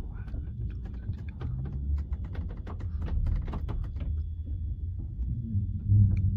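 Low rumble inside a train carriage, with a quick run of light clicks and knocks over the first four seconds, then a steady low hum building near the end.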